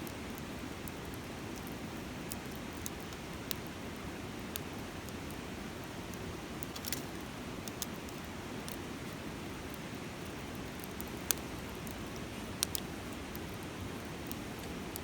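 Wood campfire crackling, with sharp pops at irregular intervals, over the steady rush of a river.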